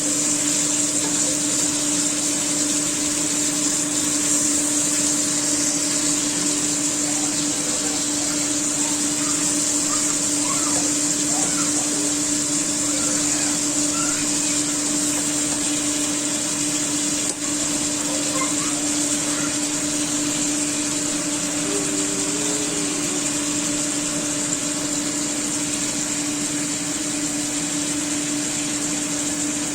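A steady electric motor hum with a fan-like whir, holding one constant low tone and a high whine without change.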